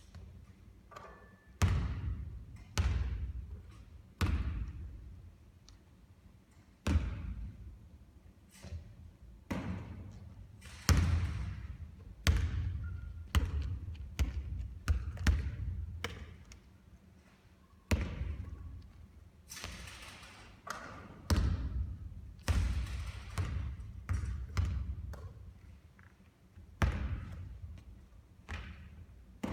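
Basketball bouncing on a hard court during repeated three-point shooting: about twenty sharp thuds, roughly one every second or two, each trailing off with a ringing decay.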